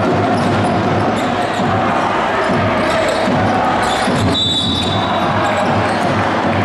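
A basketball bouncing on the court amid steady spectator voices, with a short high whistle tone about four seconds in.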